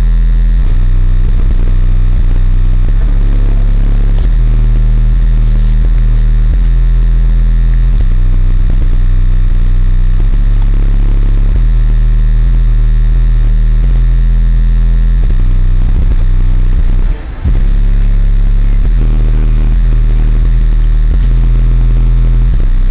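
Deep bass music played very loud through an 18-inch Ascendant Audio subwoofer powered by an American Bass VFL-150.1 amplifier, the bass notes changing every second or two. There is a brief break about seventeen seconds in.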